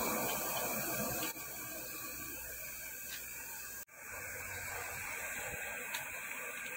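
Steady, even hiss of workshop background noise after the lathe has stopped, with a brief dropout about four seconds in.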